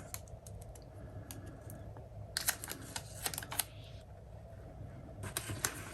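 Faint handling of paper and craft pieces on a tabletop: scattered small clicks and taps, bunched in a short run around the middle and again near the end.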